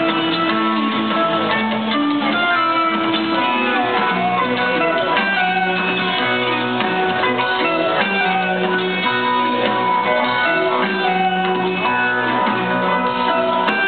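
Live rock jam band playing with guitars, bass and drums, recorded from far back in an arena; the sound is dull, with the top end cut off.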